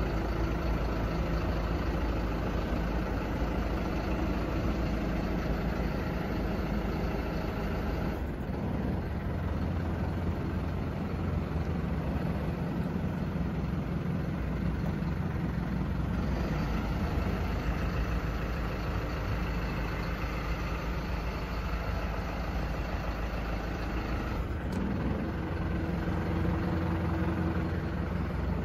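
Truck engine idling steadily, a constant low hum.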